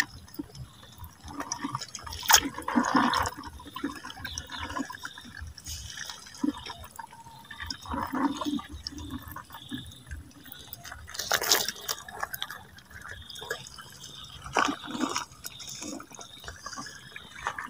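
Water splashing and sloshing in irregular bursts, loudest about two and a half and eleven and a half seconds in.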